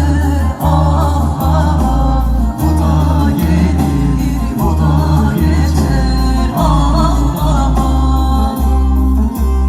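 Music with singing over a heavy bass line and a steady beat.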